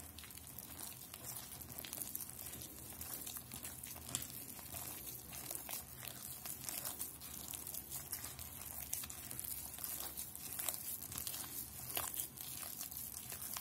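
A hand mixing flour into wet, sticky dough in a glass bowl, making a dense run of soft, irregular crackles.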